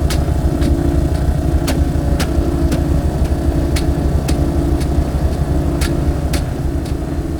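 Harsh noise: a loud, dense, distorted low rumble with a mid-range drone that pulses on and off about once a second, broken by scattered sharp clicks.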